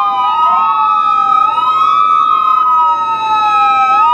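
Several police car sirens sounding at once: overlapping wails that slowly fall and rise in pitch, over one held, unchanging tone.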